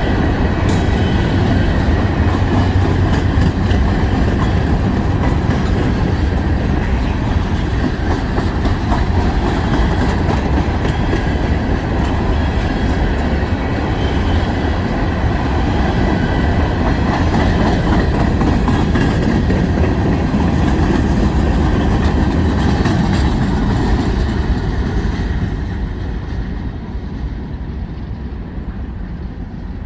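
Long mixed freight train's cars rolling past, wheels clicking and rumbling over the rails; the sound drops off near the end.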